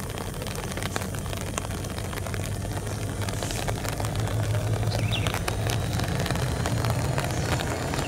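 Diesel locomotives approaching at low speed. Their engines make a steady low drone that grows louder as they come closer, with faint scattered clicks over it.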